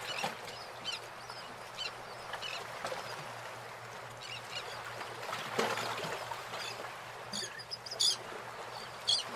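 Small birds chirping repeatedly over quiet rural background noise, with sharper high calls near the end and a few soft knocks.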